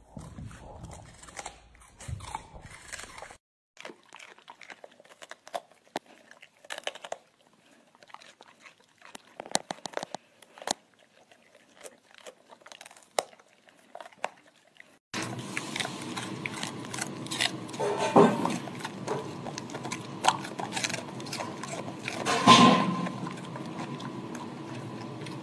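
Golden retrievers chewing raw vegetables: a run of separate sharp, crunchy bites and chews. About two-thirds of the way in, a steady hum comes in beneath the chewing, with two loud crunches standing out.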